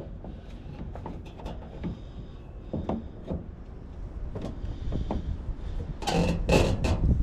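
Scattered clicks and knocks of a turn-signal light housing and its clip being handled and worked into place by hand, with a louder cluster of knocks and rattles about six seconds in.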